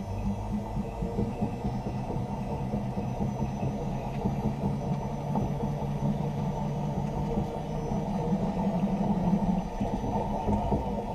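An electric car's driveline turning as the car rolls: the drive unit's output shaft and propshaft joint spinning beneath the floor, heard as a low rumble with a steady hum, a little louder near the end.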